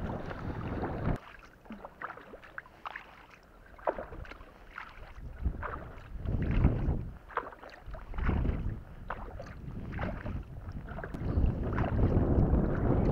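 Kayak paddle strokes: the blades dip and pull through calm water, with drips and small splashes falling off the blade. Wind rumbles on the microphone at the start and builds again near the end.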